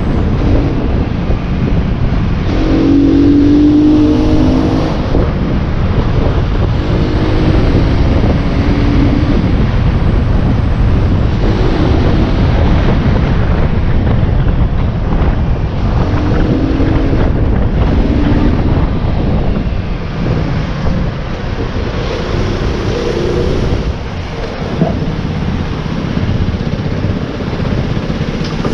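Aprilia RX enduro motorcycle being ridden, heavily buffeted by wind on a helmet-mounted microphone, with the engine note coming through in short rising stretches as it pulls away. It gets quieter about two-thirds of the way through as the bike slows to a crawl.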